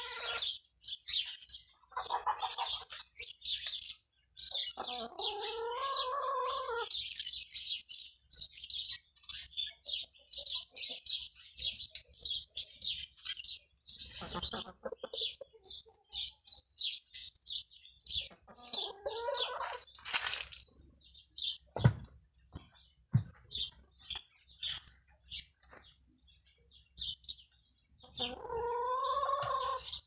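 Small birds chirping busily and continuously, with a domestic fowl giving three longer calls: one a few seconds in, one about two-thirds of the way through and one near the end. A brief loud rustle comes about two-thirds of the way in.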